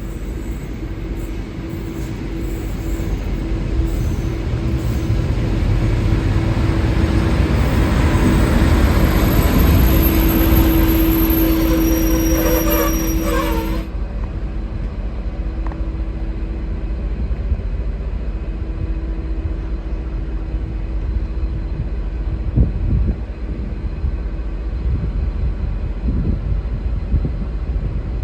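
A V/Line N class diesel-hauled passenger train rolling into the platform, growing louder over several seconds, with a short wavering brake squeal just before the noise drops away abruptly about fourteen seconds in. After that the train stands with a steady lower hum and rumble.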